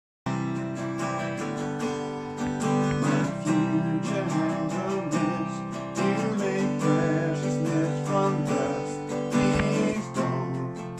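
Instrumental intro of a worship song led by strummed acoustic guitar, starting suddenly out of silence a moment in.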